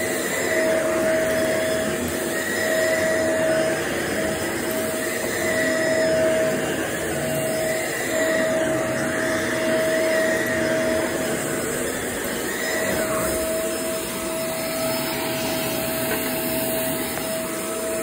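Shark upright vacuum cleaner running on carpet. Its steady motor noise carries a whine that breaks off and returns every second or so.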